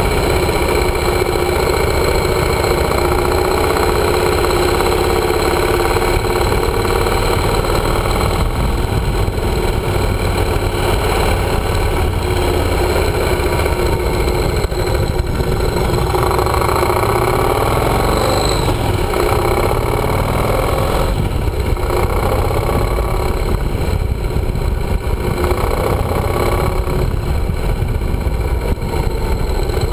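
Yamaha motorcycle engine running while riding, its pitch rising and falling with the throttle, over a steady low wind rumble on the microphone.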